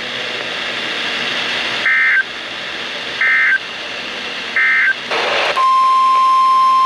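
Emergency Alert System end-of-message data bursts: three short two-tone warbling chirps, evenly spaced about a second and a half apart, closing a tornado warning broadcast. A brief burst of hiss follows, then a steady single-pitch alert tone, the 1050 Hz NOAA Weather Radio warning alarm, starts and holds.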